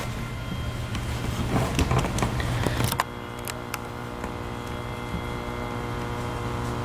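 Clicks and rustles from equipment being handled, over a constant low hum. About three seconds in, a steady drone of many pitches starts abruptly and holds.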